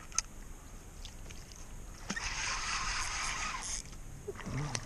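Spinning reel being cranked in spells, winding in a hooked channel catfish, with a single sharp click just after the start.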